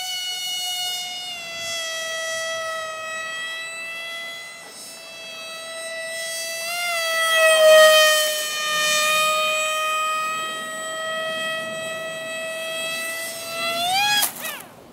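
Electric motor and propeller of a cardboard RC F-22 model plane whining steadily in flight. The whine swells and dips slightly in pitch as the plane passes close about eight seconds in. Near the end it rises sharply in pitch and cuts off suddenly as the plane goes down.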